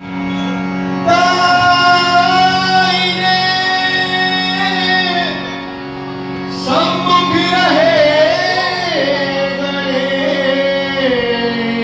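A man sings a long held note over the steady reed drone of a harmonium, pauses, then from about seven seconds in carries on with a wavering, ornamented melodic line.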